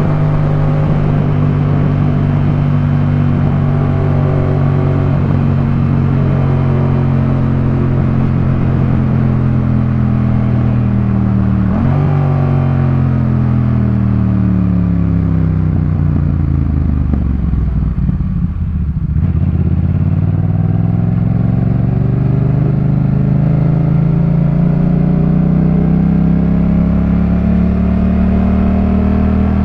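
Yamaha MT-07 parallel-twin engine through a Jeskap K4 full exhaust, riding at steady revs. About twelve seconds in, the revs jump briefly and then fall away over several seconds as the bike slows. From about nineteen seconds they climb again under acceleration and level off near the end.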